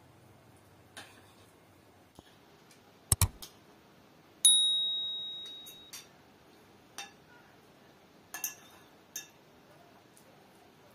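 Spoons and forks clinking faintly against china plates. A sharp double click comes about three seconds in, followed a second later by a single clear bell-like ding that rings out and fades over about a second and a half.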